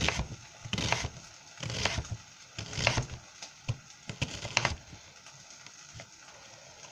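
Kitchen knife chopping through an onion onto a cutting board: about six crunchy cuts, roughly one a second, stopping about five seconds in.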